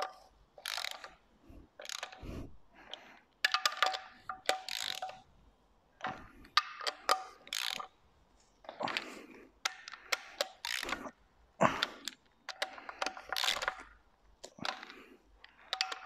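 Hand socket ratchet running down the cylinder head bolts on a Saab B204 engine, snugging them before torquing. Its pawl clicks rapidly in bursts about a second long, with short pauses as it moves from bolt to bolt.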